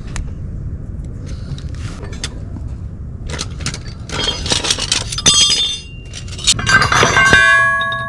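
Metal tools knocking and clattering, building to a loud clang about seven seconds in that keeps ringing with several clear tones.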